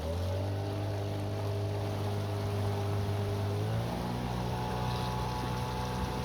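A small boat's engine running under way, its pitch rising right at the start and shifting again a little under four seconds in as the throttle changes.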